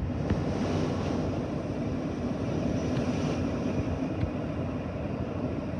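Boeing 777-300ER's General Electric GE90-115B turbofan engines running: a steady rumble with a faint high whine that fades out about three seconds in.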